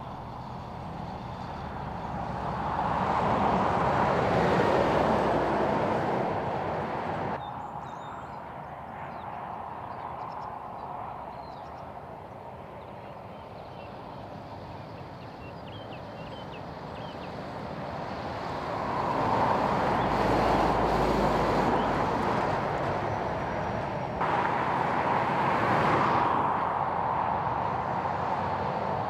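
Heavy diesel trucks and cars going by on a highway: the engine and tyre noise swells as each one approaches and passes, then fades. There are three separate pass-bys, with a sudden change in the sound twice between them.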